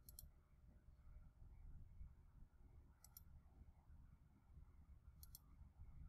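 Near silence: faint room tone with three quiet computer mouse clicks, each a quick double click of press and release, right at the start, about three seconds in, and a little after five seconds.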